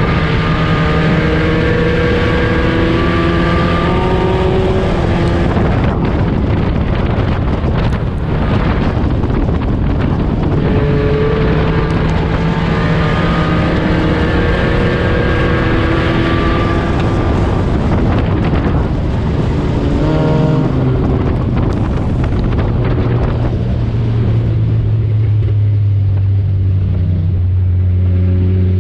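Four-cylinder Econo4 dirt-track race car's engine heard from inside the cockpit, its pitch rising and falling as it is driven through the laps, over wind and chassis noise. About two-thirds of the way in, the pitch drops and settles into a low steady drone as the car slows.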